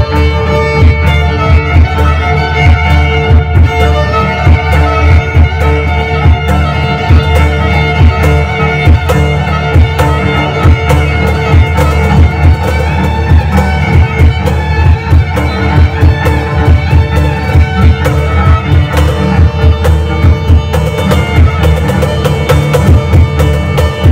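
Live trio of bowed violin, cello and cajón playing an instrumental tune: the violin carries the melody over sustained cello notes, with frequent hand-drum strokes on the cajón.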